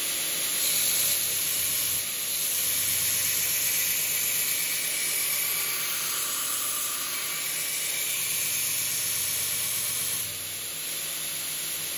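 Belt grinder running fast, its frequency drive set to 27 Hz, with a steel knife blade in a bevel jig held against a worn, diamond-dressed abrasive belt: a steady grinding hiss, a little quieter for the last two seconds. At this speed the spent belt barely removes metal and mostly heats the blade.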